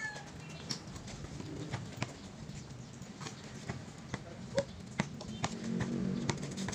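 Basketball bouncing on an outdoor concrete court, a scattering of sharp knocks at uneven intervals. A bird cooing sits low in the background, strongest near the end.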